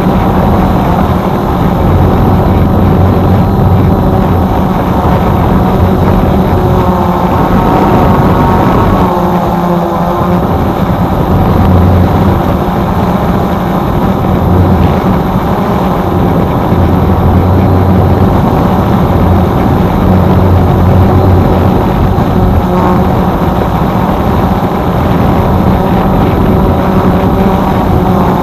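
Multirotor drone's propellers and motors running with a steady buzzing hum, the pitch and strength shifting slightly as it flies.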